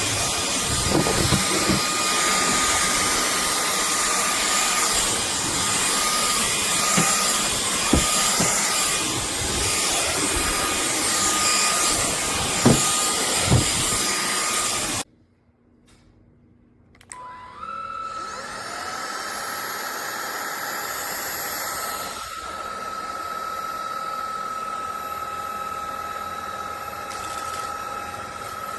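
Cordless stick vacuum running, a steady whooshing hiss with a thin whine and a few sharp clicks as grains of cat litter are sucked up. It cuts off abruptly about halfway through. A couple of seconds later a vacuum motor spins up again and settles into a quieter, steady whine.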